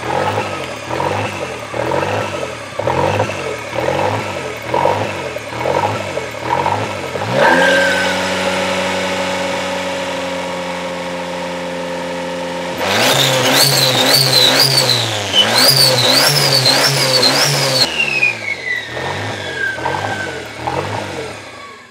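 Toyota 3E-TE turbocharged four-cylinder engine with a rough bouncing idle, its revs surging up and down in quick, even pulses. A touch of throttle sends it up to a steady high idle around 3000 rpm, then a few quick revs, after which it slowly drops back down to the hunting idle. The owner does not know the cause and suspects wrong vacuum lines or crossed ECU wires.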